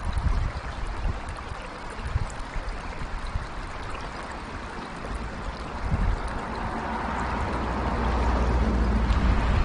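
Shallow mountain river running over rocks, a steady rush of water, with a low rumble under it that swells in the second half.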